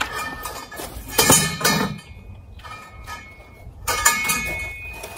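Greenhouse kit frame tubes clinking and knocking together as they are pushed and seated into place: a knock at the start, a cluster of clinks about a second in and another about four seconds in, each leaving a short metallic ring.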